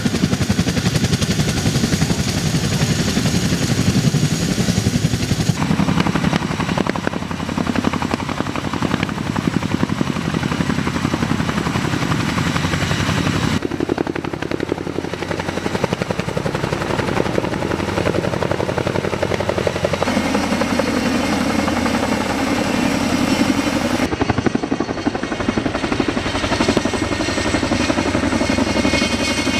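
Loud, steady engine noise from heavy military machinery, a large vehicle or aircraft. It changes abruptly at cuts about 5, 14 and 24 seconds in.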